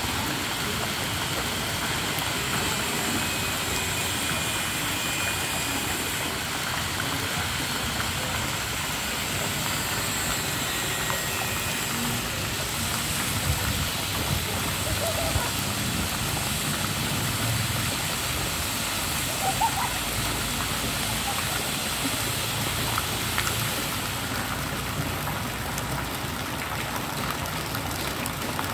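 Steady hiss of light rain falling on pool water and the surrounding deck, with a few brief louder sounds near the middle.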